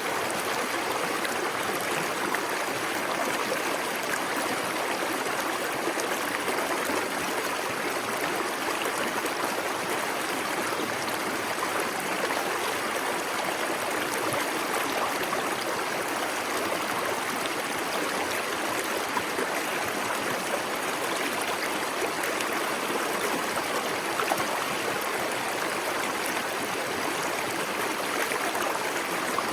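Small waterfall splashing steadily into a plunge pool, with the stream's continuous rushing and gurgling water.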